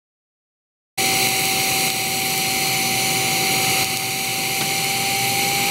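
TIG welding arc burning steadily, an even hiss with a thin steady tone through it, starting about a second in.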